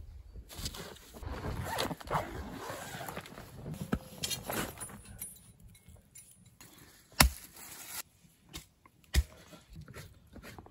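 Shovel scraping and crunching through thin snow, followed by a few scattered sharp knocks and taps, the loudest about two-thirds of the way through.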